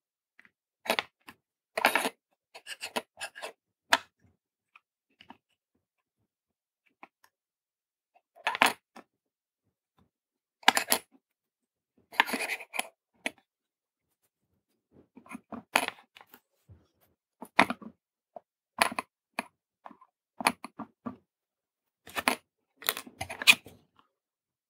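Irregular short clicks and taps with silent gaps between, from handling a small circuit board and a soldering iron while soldering a tactile push button's pads.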